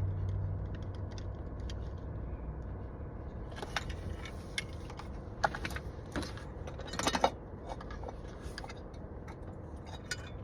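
Scattered light clicks and rattles of steering-wheel trim pieces and tools being handled while the trim clips are worked loose, the sharpest about five and seven seconds in. A low rumble fades out within the first two seconds.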